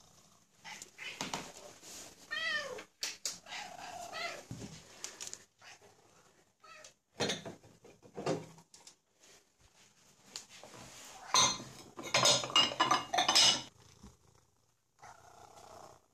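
Domestic cats meowing again and again, demanding breakfast, with a few sharp clicks and clinks among the meows. The loudest meowing comes about twelve seconds in.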